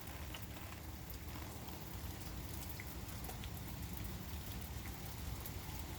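Steady thunderstorm rain falling, a continuous even hiss with scattered faint drop ticks.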